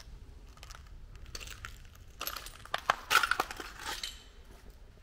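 Footsteps crunching over debris on a floor, with a few glassy clinks, bunched into a short burst of crunches about two seconds in and fading out before the end.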